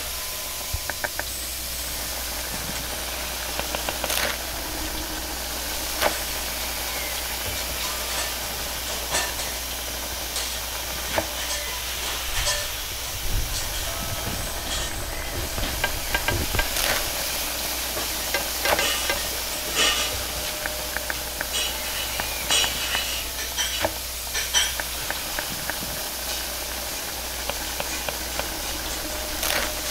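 Steady hiss and sizzle of a hot wok over a high gas flame, water steaming in it, with scattered clinks and scrapes of a scrubbing brush and metal utensils against the wok. Near the end an egg fries in the wok.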